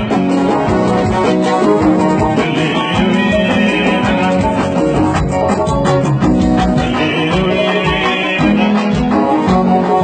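Dance music with instruments and a singing voice in stretches, playing steadily throughout.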